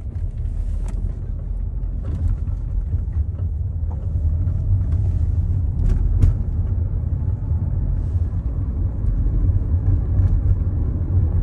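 Steady low road and engine rumble heard from inside the cabin of a moving car, with a few faint clicks.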